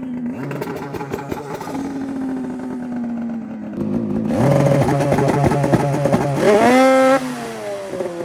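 Turbocharged two-stroke Polaris Boost snowmobile engine running at a low steady speed. About four seconds in it jumps louder and is held at a fixed, choppy rpm, as with launch control. Then it revs up sharply and falls away.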